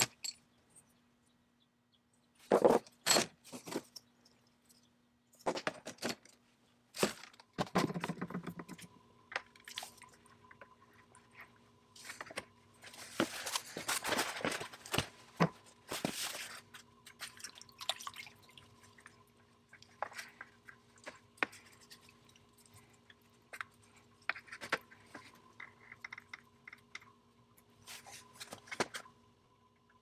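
Workshop handling sounds: a scattered string of knocks, clicks and scrapes as parts are handled around a bucket of rust remover, with a louder rustling stretch in the middle and a faint steady hum underneath.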